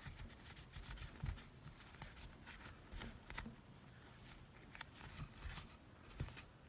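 Faint rustling and rubbing of a cloth wiped over the outside of a Glock pistol barrel, with a few soft knocks from handling the parts.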